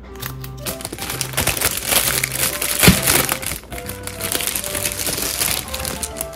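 Plastic food packaging crinkling and rustling as it is handled and a bread bag is opened, with one sharp crack about three seconds in, over background music.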